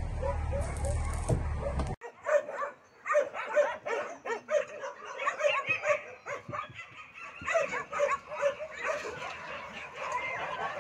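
Puppies whining and yipping in many short, high calls, several a second, starting about two seconds in. Before that there is a steady low rumble.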